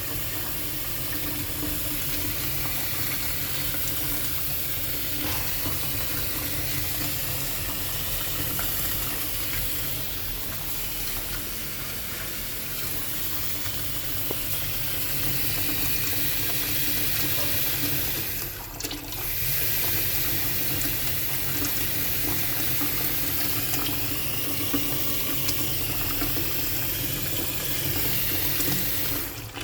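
Water running steadily from a tap, with one brief dip in the flow about two-thirds of the way through. The flow cuts off at the very end.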